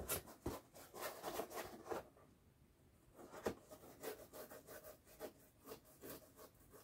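Faint brushing: a small glue brush scraping in a can of glue, then rubbing strokes as glue is brushed along a foam edge. The strokes come in two quick runs with a pause of about a second between.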